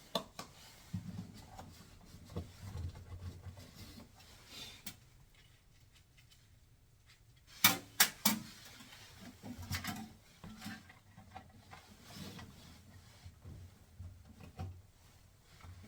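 Hands working a lubricated rubber door boot gasket into place on a washer: rubbing and handling noises, with a cluster of three sharp knocks about halfway through.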